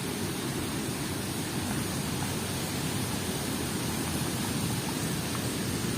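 Steady rushing noise with a low rumble, unchanging throughout.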